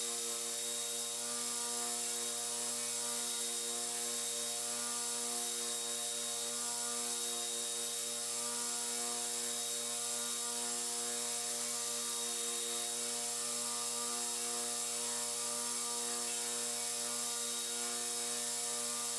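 Belt grinder running steadily, its motor humming under the constant hiss of the abrasive belt as a knife's maple handle is shaped against it.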